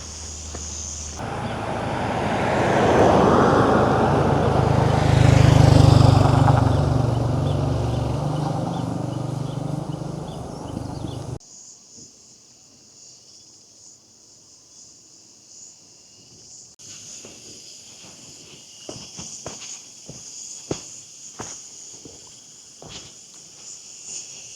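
A large vehicle passes close by: its engine rumble swells to a peak and fades, then cuts off suddenly about eleven seconds in. Afterwards insects buzz steadily and footsteps crunch along the path.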